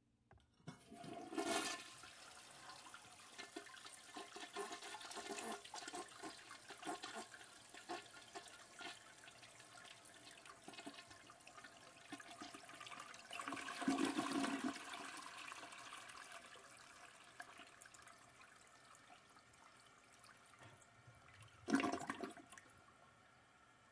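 Toilet flushing: water rushes in just under a second in, swells loudest around halfway, then slowly dies away, with one more short loud gush near the end.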